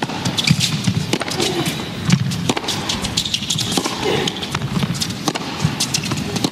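Tennis ball struck back and forth by rackets in a rally on an indoor hard court, a string of sharp hits over a steady background of arena noise.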